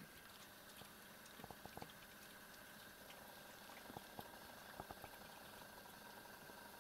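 Faint, scattered small clicks and smacks of cats chewing food from a shared bowl, over quiet room hiss.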